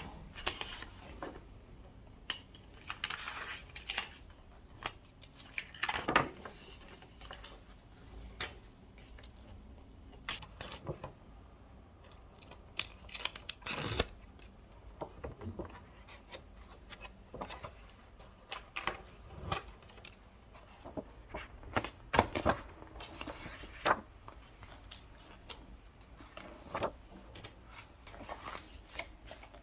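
Close-up handling sounds: irregular small clicks and taps with brief rustles, as objects are picked up, set down and worked by hand.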